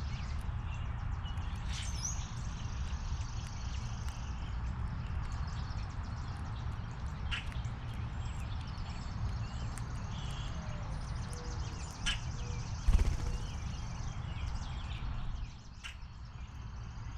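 Small birds chirping at a feeder over a steady low rumble, with a few sharp knocks, the loudest about two-thirds of the way through.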